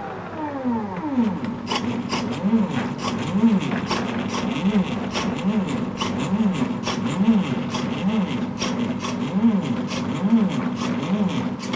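Motors of a large painting machine making quick successive moves: each move a short whine that rises and falls in pitch, over a steady hum and mixed with sharp ticks. A longer whine falls away just at the start.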